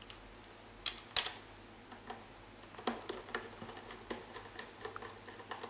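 Irregular small clicks and taps of hands working on a SoundDock's plastic internals, a few sharper ones about a second in and about three seconds in.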